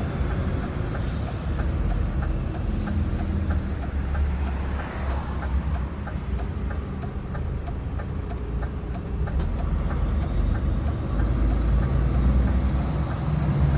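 DAF XF 460 truck's stock diesel engine running under way, a deep steady drone that grows louder near the end. A light, even ticking of about three a second runs through the middle.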